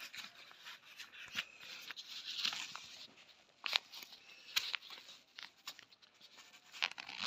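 Rustling and scraping of a fabric zippered glucose-meter case being handled, with a few sharp clicks, the loudest a little before the middle and again near the end.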